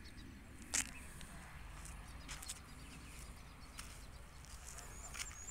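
Quiet outdoor background with a low rumble, broken by one sharp click a little under a second in and a few fainter clicks later on.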